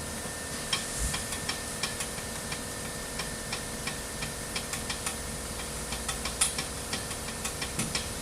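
Hand tools clicking on car parts: sharp, irregular clicks, a few a second, starting about a second in, over a steady background hum.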